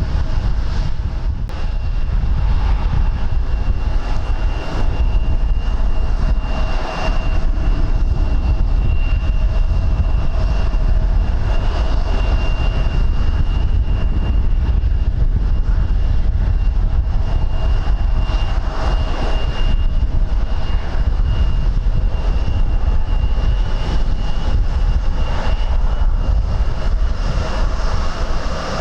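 Aircraft engines running steadily, with a high whine and a lower tone held throughout, under heavy wind buffeting the microphone.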